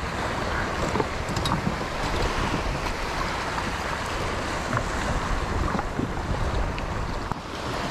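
Steady wind buffeting the microphone over water lapping and splashing around a jet ski, with a few faint ticks.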